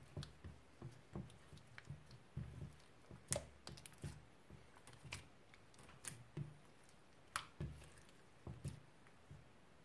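Hands kneading and squeezing soft white slime in a glass dish to mix lipstick colour through it. There are soft low squishes and irregular sharp clicks and pops, several times a second at most.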